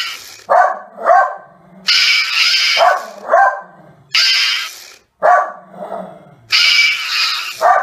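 Gutted plush penguin toy's sound chip playing through its small speaker: a repeating cycle of a hissy burst about a second long followed by two short yelp-like calls, three times over. It cuts off abruptly at the end.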